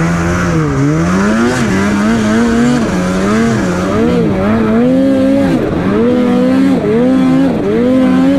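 Snowmobile engine revving up and down over and over as the throttle is worked on and off.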